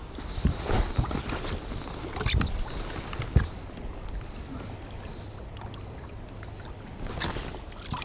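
Lake water splashing and sloshing against the boat's side as a musky is held in the water and released. There are a few sharp knocks and splashes in the first half, over a steady low rumble.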